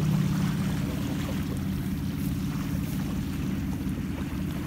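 An engine running steadily: a low, evenly pulsing hum.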